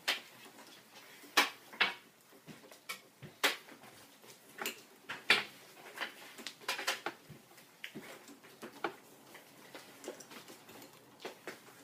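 Irregular light clicks and knocks of objects being handled and set down, about a dozen in all, with no motor running.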